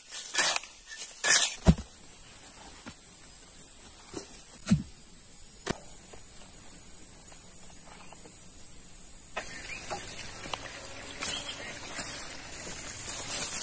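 Steady high-pitched insect drone in the background. In the first two seconds a few sharp strikes sound as a steel spade digs into stony, dry soil.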